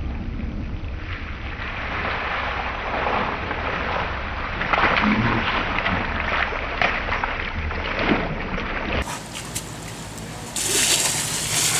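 Water hissing from a slip and slide's spray jets, with splashing as bodies slide along the wet plastic sheet, thickest from about four to eight seconds in. Wind rumbles on the microphone underneath.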